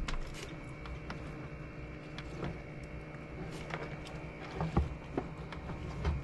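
A steady low hum with scattered light clicks and knocks of wire and tools being handled, one louder knock near the end.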